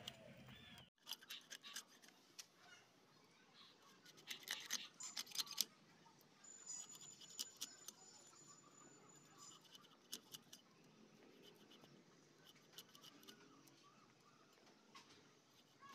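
Nile tilapia being scaled and cut on a boti, a fixed curved blade: scattered clusters of short scraping clicks as the scales are rasped off against the blade, loudest about five seconds in.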